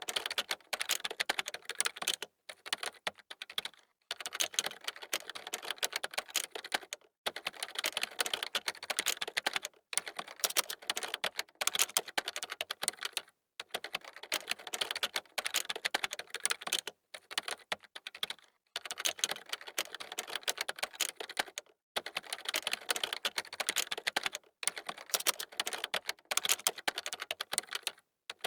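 Fast typing on a computer keyboard: rapid runs of key clicks, broken every second or few by brief pauses.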